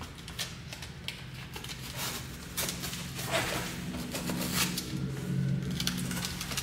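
Scattered rustles and light knocks of hands working inside a cardboard shipping box, brushing against its paper-wrapped contents.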